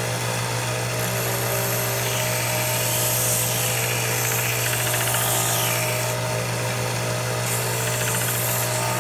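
Mini belt sander running with a steady motor hum, and the rasp of a small wooden piece pressed against the moving belt and rolled back and forth to round its corners. The sanding noise shifts as the contact changes.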